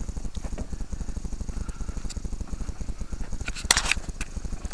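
1988 Jeep Wrangler running slowly over rough ground, its engine making a rapid low pulsing, with a sharp clatter about three and a half seconds in.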